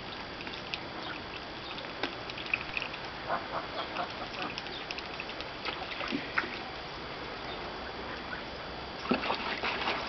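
Geese splashing and dabbling in a bathtub of water: scattered small splashes and drips with a few soft goose calls, growing louder and busier near the end.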